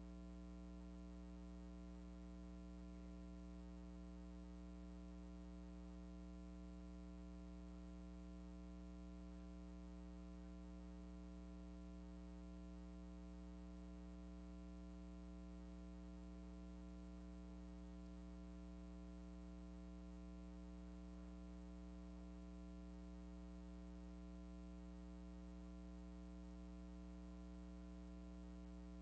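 Faint, steady electrical mains hum in the audio feed, a constant buzz of evenly spaced tones with nothing else heard over it.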